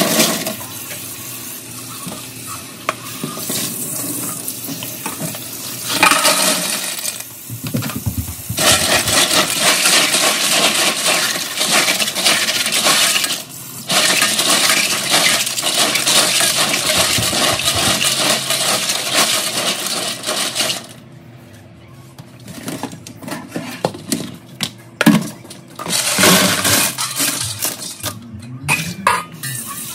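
Tap water running into a sink of small clams, with the shells clattering and clicking as they are rinsed. The water runs in long stretches, then stops about two-thirds of the way through, leaving scattered shell clatter.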